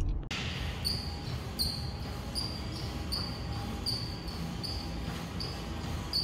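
Treadmill in use, with a short high-pitched chirp repeating evenly about every three-quarters of a second over a low steady hum.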